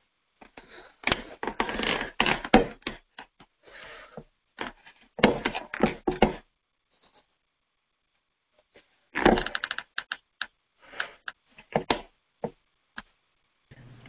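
Close-up handling noise over a call microphone: bursts of rapid clicks and rustles, three main clusters with scattered single clicks between them.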